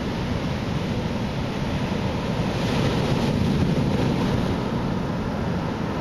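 Typhoon swell breaking on the beach: a steady rush of surf that swells to a louder crash about three seconds in, then eases back.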